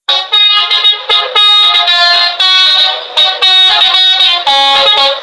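Bus "basuri" telolet horn playing a quick melody: a run of loud, short horn notes that jump between many different pitches with brief breaks between them.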